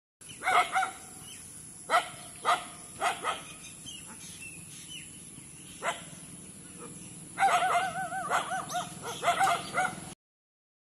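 A dog barking in short yaps several times, with a run of wavering, yelping cries about seven and a half seconds in.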